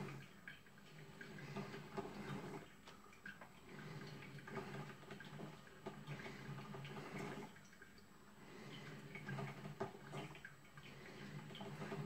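Drip coffee maker brewing: its heater gurgles and bubbles in uneven swells every two to three seconds, with coffee dripping into the glass carafe.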